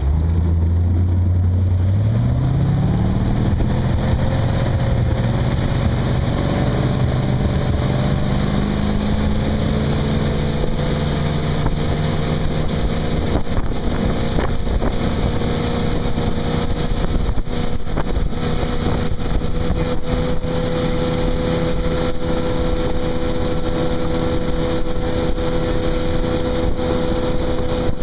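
Tow boat's engine accelerating hard from a deep-water start to barefoot skiing speed. Its pitch climbs over the first several seconds and then holds steady, over a constant rush of spray and wind.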